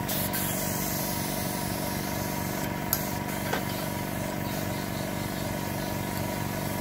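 Small airbrush compressor with a tank running steadily, a constant motor hum with a hiss of air. Two light clicks come about three seconds in.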